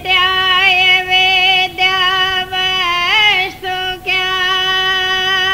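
A high-pitched voice singing a devotional hymn in long held notes, with a few short breaks for breath and a quick rising-and-falling ornament about three seconds in.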